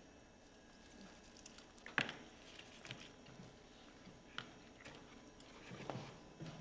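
Two people biting into and chewing chicken wings, quiet mouth sounds with a few sharp wet smacks; the loudest comes about two seconds in and a small run of them near the end.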